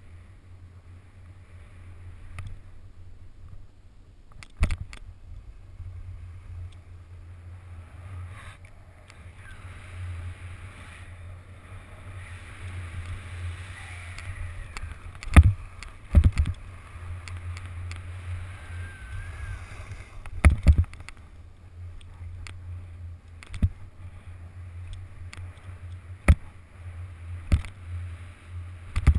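Skiing down a snowy piste, heard through a GoPro action camera: a steady rushing hiss of snow and wind over a low rumble, broken by sharp knocks over bumps, the loudest a little past the middle.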